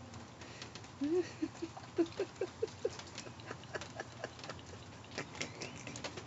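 Water pattering and splashing in scattered ticks. About a second in comes a quick run of about eight short, squeaky, rising notes lasting about two seconds.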